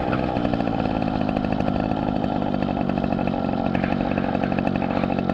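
Small two-stroke engine of a Riga moped running steadily with a high, buzzing note.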